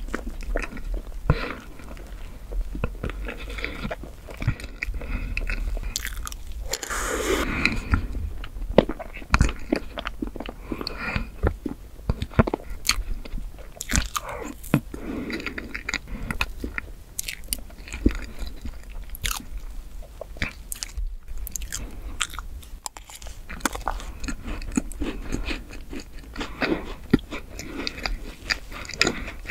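Close-miked mouth sounds of eating chocolate whipped-cream cake: biting and wet, sticky chewing of mouthfuls of cream and sponge, with occasional crunches from the chocolate sandwich-cookie pieces in it.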